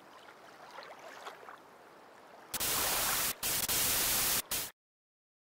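TV static hiss, a loud even noise lasting about two seconds after a near-quiet start, broken twice by brief gaps and cutting off suddenly into silence.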